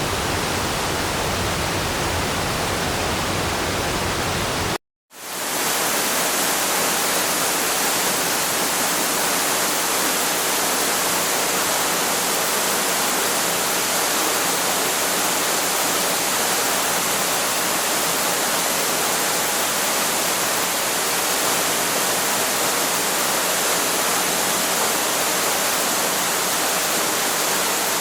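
Waterfall: a steady, even rush of falling water. About five seconds in it cuts out for a split second and comes back with less low rumble and more hiss.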